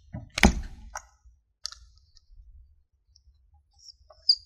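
A few sharp clicks and a light knock in the first two seconds, the loudest about half a second in. Near the end, short high squeaks of a dry-erase marker starting to draw on a whiteboard.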